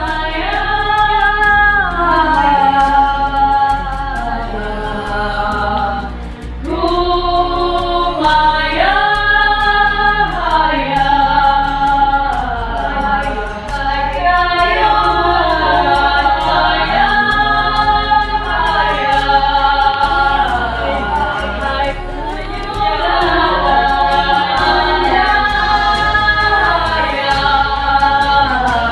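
Group of voices singing a Dusun gonding folk chant in harmony, holding long notes that slide up and down between pitches.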